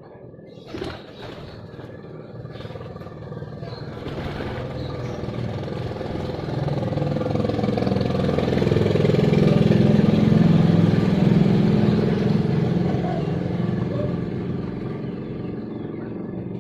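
A motor vehicle passing by, its engine noise swelling to a peak about ten seconds in and then fading away.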